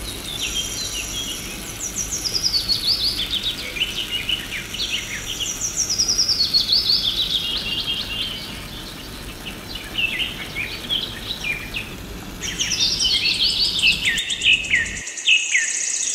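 Songbirds chirping and singing in quick descending trills, with a thin steady high insect-like buzz during the first few seconds. Under it runs a low steady background noise that cuts off about a second before the end.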